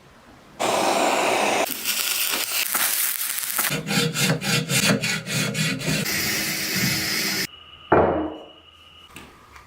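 Abrasive rubbing on the old coffee grinder's parts during restoration: a loud rasping that becomes quick back-and-forth strokes of about four a second, then one sharp knock near the end.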